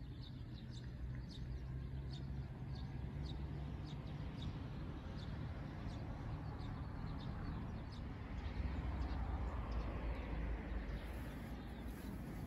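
Outdoor ambience: small birds chirping in quick, repeated short calls over a steady low rumble, which grows louder about two thirds of the way in.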